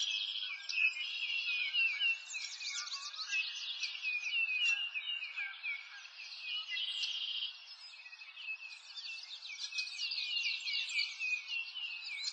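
Dense chorus of many birds chirping and singing at once, rapid overlapping high chirps with no low sounds beneath, easing off briefly around the middle.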